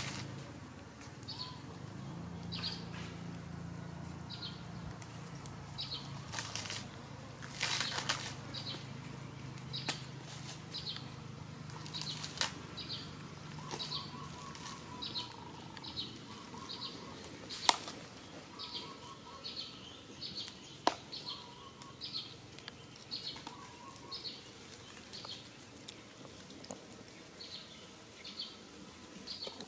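Outdoor ambience: a short high chirp repeats about once a second, with a handful of sharp clicks and crackles. A low hum fades out about halfway through.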